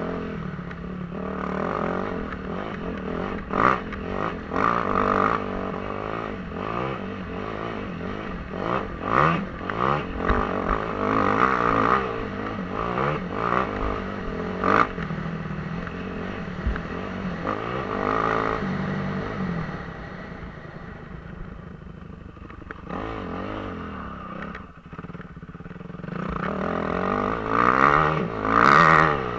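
Suzuki RM-Z250 dirt bike's single-cylinder four-stroke engine running under riding load, its pitch rising and falling as the throttle opens and closes, with sharp knocks mixed in. It quietens for several seconds about two-thirds of the way through, then revs up hard again near the end.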